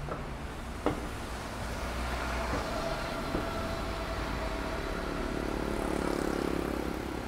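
A large vehicle running past in street traffic: a steady low rumble with a motor whine, growing louder toward the end. A single sharp knock about a second in.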